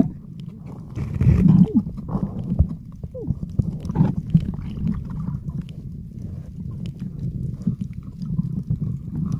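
Muffled underwater sound picked up by a camera held below the surface: a steady low rumble of moving water, with scattered clicks and a couple of short falling gurgles.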